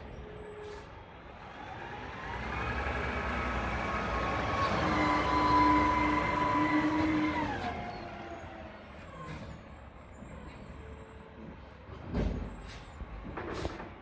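Mack front-loader garbage truck's diesel engine pulling past, rising in pitch and holding a steady whine at higher revs for several seconds before easing off. Near the end come short sharp hisses of air brakes.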